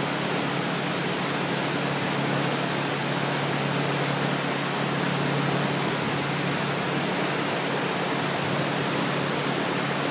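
Steady hiss with a low, even hum underneath, like a fan or ventilation unit running; no distinct knocks or impacts stand out.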